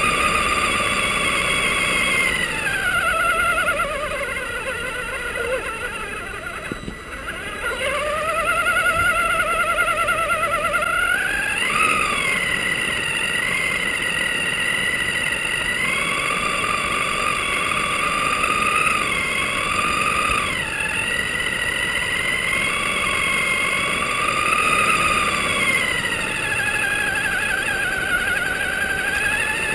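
Radio-controlled car's motor whining, its pitch rising and falling as the car speeds up and slows down. The pitch sinks low and the sound grows quieter about a quarter of the way in, then climbs again.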